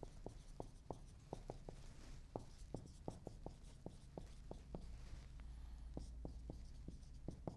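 Dry-erase marker writing on a whiteboard: a faint, irregular series of short taps and squeaks as the letters are drawn.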